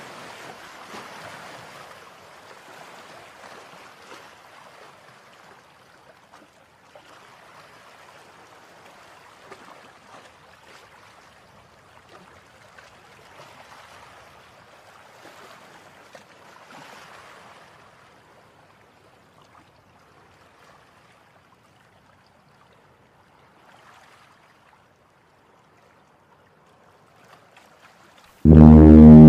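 Faint river water lapping and washing at the bank, rising and falling in swells, dying away about two-thirds of the way through. Near the end a ship's horn starts abruptly, very loud: one deep, steady, blaring tone.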